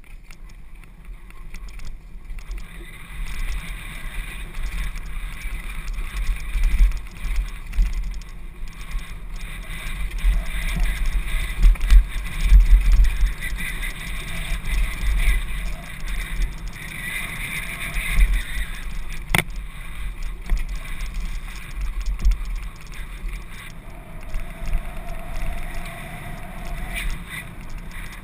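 Downhill mountain bike riding fast down a dirt forest trail: tyres rumbling over the ground and the bike rattling, under heavy wind buffeting on the microphone. A single sharp knock comes about two-thirds through, and a short steady whine near the end.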